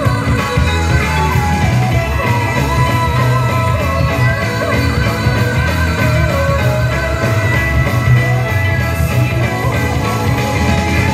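Loud recorded rock-style music with a singing voice, guitar and a steady bass line, played for a YOSAKOI flag-waving performance.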